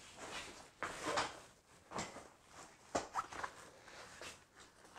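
A heavy nylon carry bag holding a packed inflatable boat rustling, with a few soft knocks as it is set down on a platform scale and shifted into place, the sharpest knock about three seconds in.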